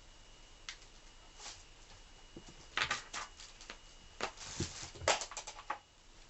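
A cat scuffling and pawing on a carpet: an irregular run of short rustles and taps, busiest in the second half.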